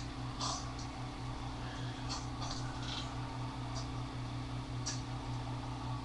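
Quiet room tone: a steady low electrical hum with a few faint, scattered rustles and clicks.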